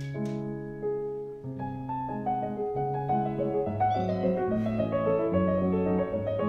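Solo classical piano music playing steadily, with a cat's short meow heard faintly over it about four seconds in.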